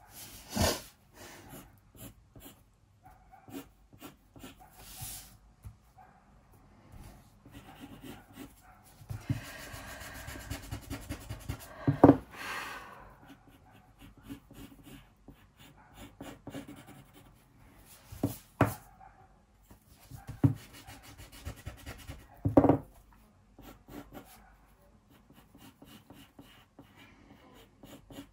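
Pencil sketching on paper: soft scratchy strokes, busiest about a third of the way in, with a few sharp knocks on the desk, the loudest about 12 seconds in.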